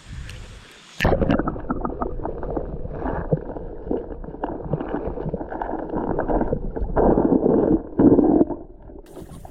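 Muffled sloshing and gurgling of stream water, heard with the microphone at or under the water's surface. It starts suddenly about a second in and is full of small splashes and knocks.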